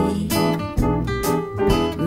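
Background music: an instrumental gap in a pop song between sung lines, with guitar chords struck several times.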